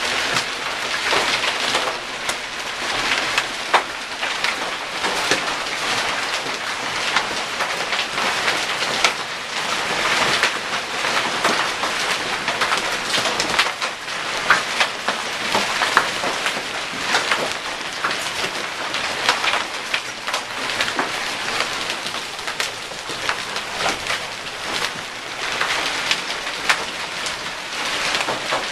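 Hailstorm with heavy rain: a steady dense hiss of falling rain with many sharp clicks and taps of hailstones striking throughout.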